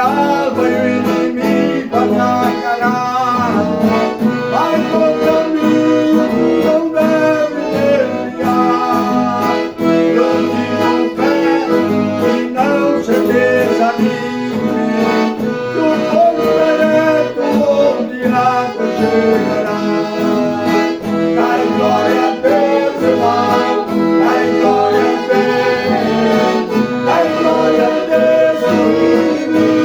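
Accordion (gaita) playing a praise hymn tune, steady and continuous.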